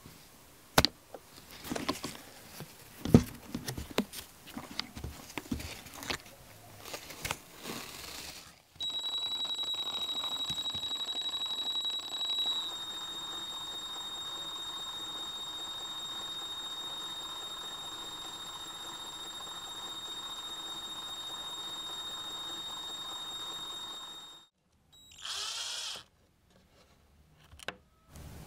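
An elastic band is stretched and wrapped around a cordless drill's grip, with rubbing and sharp clicks. Then the trigger-locked cordless drill runs steadily with a high-pitched whine for about fifteen seconds, turning a rod coated in silicone. Its pitch drops a little a few seconds in, it stops, and a short burst follows.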